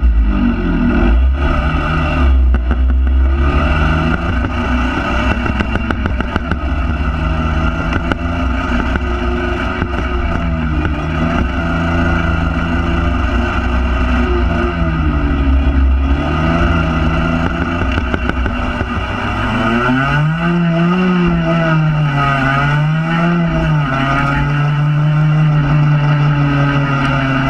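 Honda NSR50's 49 cc two-stroke single-cylinder engine running under way, its revs rising and falling repeatedly as the throttle is opened and closed, then holding steady near the end. A low rumble of wind on the microphone is strongest in the first few seconds.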